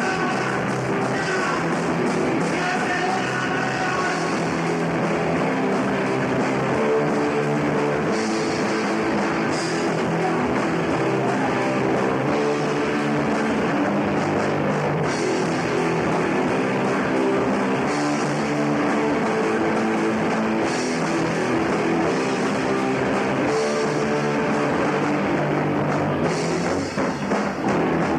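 Punk rock band playing live: distorted electric guitars, bass and drum kit, loud and steady.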